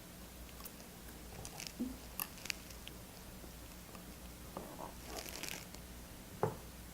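Faint small clicks and handling noises as an iPhone 7 Plus's display flex-cable connectors are pressed onto their sockets by finger, with a sharper click near the end as a connector snaps into place.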